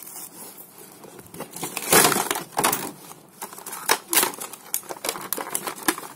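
Cardboard toy box and clear plastic blister tray being handled and pulled apart: irregular crinkling and rustling with short clacks, loudest about two seconds in and again around four seconds.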